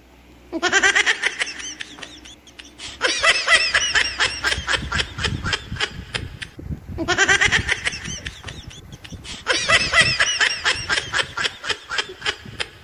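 A young child laughing: four bouts of rapid, high-pitched giggling, each a quick run of short pulses.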